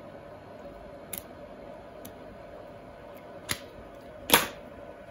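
Photo prints being handled on a tabletop: a couple of faint ticks, then two short sharp paper snaps in the second half, the second the loudest, over a faint steady room hum.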